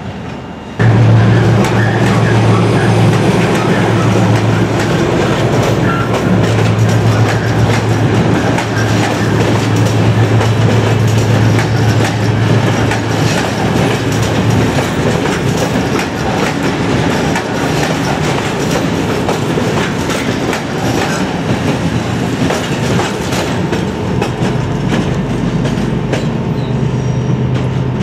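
Passenger train of coaches rolling past close by, its wheels clattering over the rail joints, with a steady low hum through roughly the first half.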